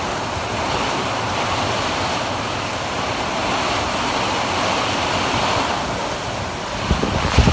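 Heavy rain pouring down in a storm, a steady hiss. Gusts of wind buffet the microphone near the end.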